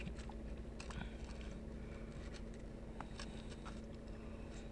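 Faint scattered clicks and rustles of fingers picking chopped onions off tacos in a takeout container, over a low steady hum.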